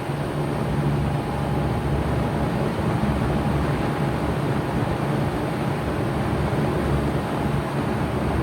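2007 Bard 3.5-ton wall-hung heat pump running steadily in heat mode: outdoor fan and compressor giving an even rushing noise over a low hum, with a faint steady whine.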